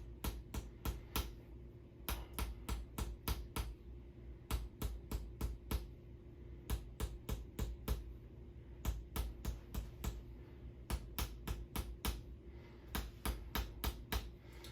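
Toksen tools: a wooden mallet rapidly tapping a wooden wedge held against the body, sharp clicks about five a second in runs broken by short pauses.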